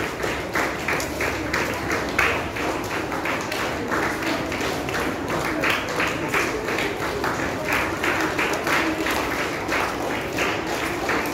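A crowd clapping together in a steady rhythm, about three claps a second.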